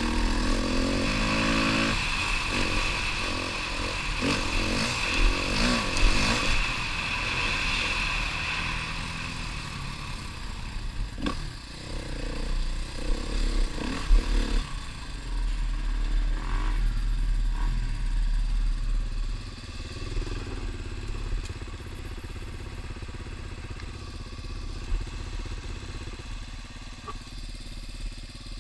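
Husqvarna trail bike engine revving up and down as it rides a rough forest track, with a low rumble under it throughout. About two-thirds of the way through it drops back and runs more quietly as the bike slows to a stop.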